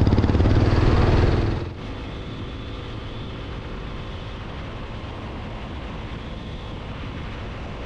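TVS Apache RTR motorcycle riding at a steady cruise, its engine running under a rush of wind and road noise. The first second and a half is a loud wind rush; then, after an abrupt cut, the engine and tyres go on quieter and steadier.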